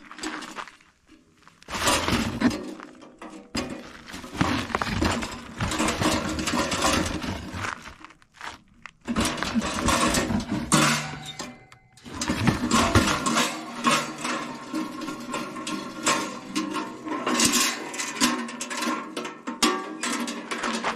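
Portable sheet-metal wood stove being emptied and handled: charcoal and ash rattling and crunching out into a cardboard box, with the stove's metal panels clanking and scraping. It comes in several spells of clatter with short pauses between them.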